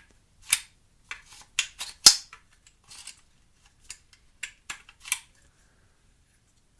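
Sharp metallic clicks and clacks from the controls of a Smith & Wesson M&P 15-22 .22 rifle being worked by hand, such as the charging handle and bolt catch. There are about nine of them over five seconds, and the loudest comes about two seconds in.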